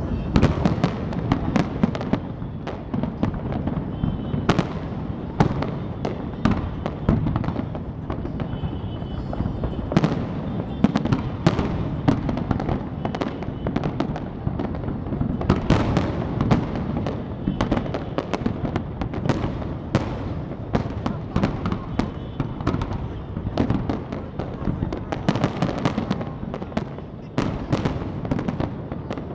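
Aerial fireworks display: many shells bursting in quick succession. Sharp bangs overlap into a continuous low rumble.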